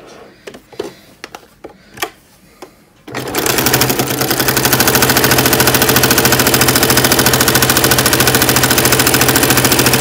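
Janome domestic sewing machine with a walking foot, stitching a seam at a steady fast rhythm. A few light clicks and taps come first; the machine starts about three seconds in and builds to full speed within about a second.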